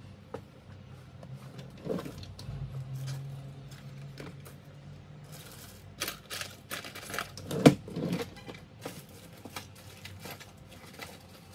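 Light clicks and clatter of small objects being handled, with a low steady hum for a few seconds and a louder knock a little past the middle.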